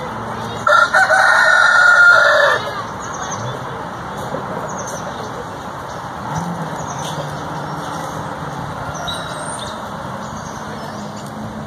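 A rooster crowing once: a loud crow of about two seconds, starting under a second in and falling in pitch at the end.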